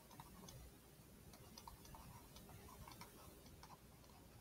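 Near silence with faint, irregular light ticks of a stylus tapping on a tablet screen during handwriting.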